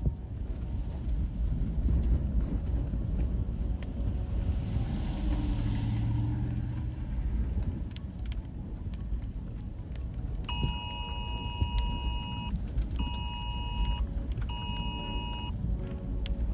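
An emergency alert tone sounds about ten seconds in: one long two-second beep, then two shorter one-second beeps. This is the pattern of a phone's Wireless Emergency Alert, warning of imminent danger. Under it runs a steady low rumble of the vehicle and wind.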